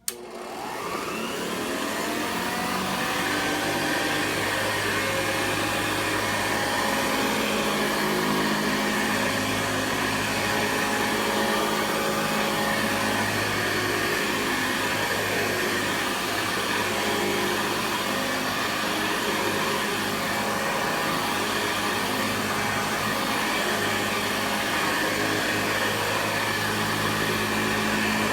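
Hoover Model 63 vacuum cleaner switched on with a click, its motor whining up to speed over a couple of seconds, then running steadily.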